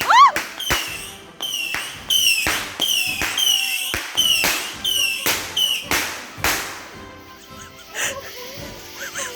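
Backyard consumer firework firing a rapid string of shots, about two to three a second, each with a short whistle. The shots stop about six and a half seconds in.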